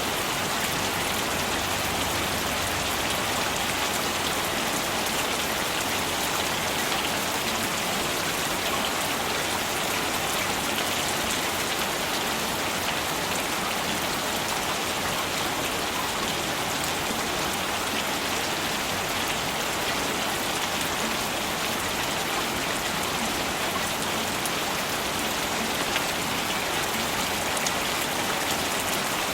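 Steady rain falling, with the close patter of individual drops on a surface over an even hiss of rain.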